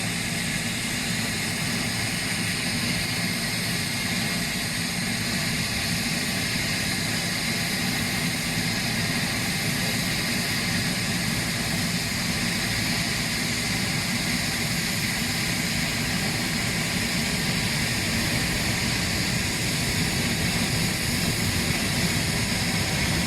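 Boeing 737 jet engines running: a steady, even rushing noise that grows slightly louder toward the end.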